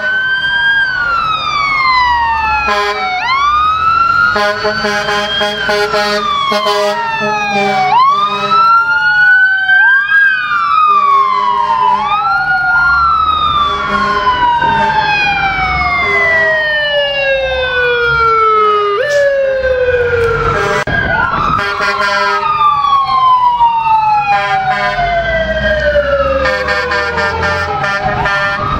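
Several fire trucks' mechanical Q sirens winding up quickly and coasting slowly back down in overlapping wails, restarting every few seconds, with repeated steady air horn blasts over a low traffic rumble.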